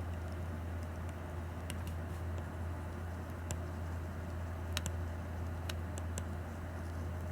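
Stylus tip tapping and clicking on an iPad's glass screen while sketching, irregular light ticks with a few close together about five seconds in, over a steady low hum.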